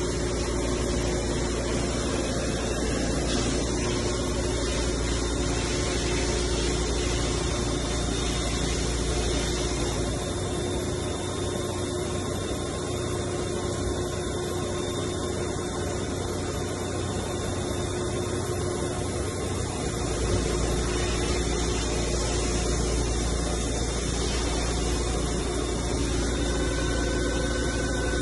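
Steady hum of a powered-up Hitachi Seiki HG400III horizontal machining center. The lowest part of the hum drops away for about ten seconds in the middle, then returns, and a thin high tone comes in near the end.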